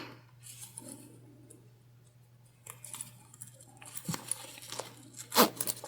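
Faint handling sounds of a zipper pull being worked onto zip tape: light fabric rustles and scattered small clicks, with a sharper click near the end.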